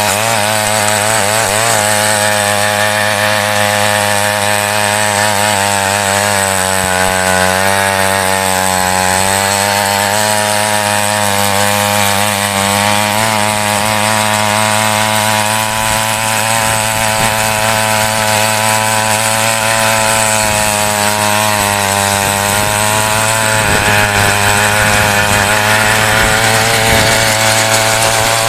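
Petrol mini weeder (a small two-stroke-engined tiller) running hard while tilling soil, its engine note wavering up and down as the tines dig in.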